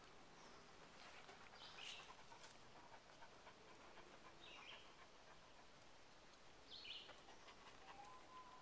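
Near silence in the woods: a Great Pyrenees dog panting faintly close by, and three short high bird chirps about two, four and a half and seven seconds in. A faint long steady note starts near the end.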